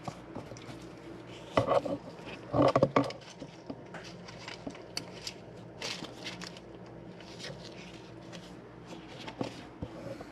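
Metal parts and hand tools clinking, knocking and scraping as they are handled, with two louder clusters of knocks early on and scattered lighter clicks after.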